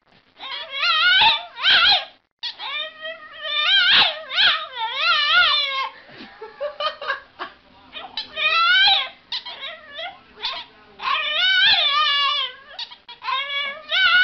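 A dog whining and howling in a string of long cries that waver up and down in pitch, with short breaks between them.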